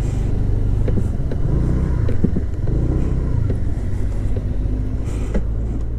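Scooter engine running at low speed in slow traffic: a steady low drone with a few small knocks and rattles, and a brief rush of hiss about five seconds in.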